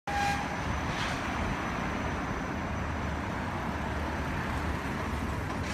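Steady city street traffic noise with a tram coming up slowly along the street tracks. A brief high tone sounds at the very start.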